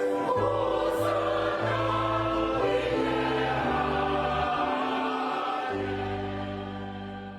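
Choral music with sustained held chords changing every second or so, fading out near the end.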